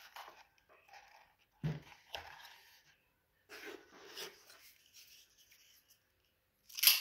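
Leather holster and belt being handled on a tabletop, rustling in patches, with a dull thump a little under two seconds in. Near the end comes a single sharp click, the loudest sound, as the revolver is handled.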